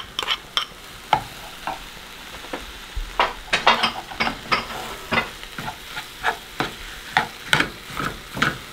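Ground bison sizzling in a skillet of chili vegetables as it is tipped in from a bowl and stirred with a metal spoon. Under a steady frying sizzle come sharp scraping strokes of the spoon against the pan, a few at first, then about two a second from the middle on.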